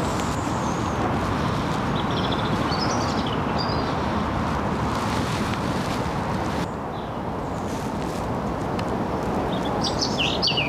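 A small bird chirping in a tree, a few short bursts of high twittering with the loudest near the end, over a steady rush of road traffic and wind.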